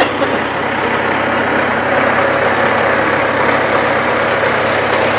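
Tractor engine running steadily during the ride, with one sharp knock right at the start.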